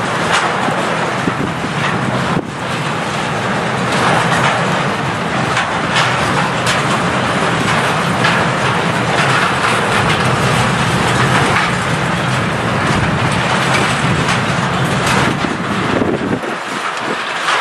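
Freight train wagons rolling past close by: a steady rumble of steel wheels on rail, with repeated clicks as the wheels cross the rail joints. The deep part of the rumble drops away about a second before the end.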